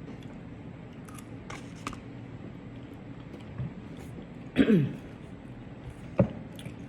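A short burp about four and a half seconds in, its pitch falling steeply. A sharp click follows about a second and a half later, with a few faint ticks earlier on.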